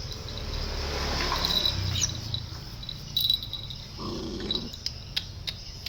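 Sounds of a pet animal: a low rumble over the first two seconds and a short call about four seconds in, with a few sharp clicks.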